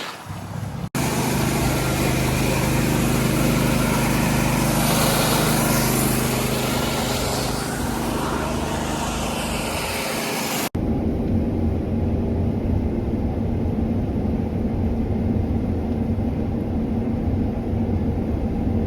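Large diesel farm machinery running steadily under load, in two back-to-back clips with a sharp cut about a second in and another just past ten seconds.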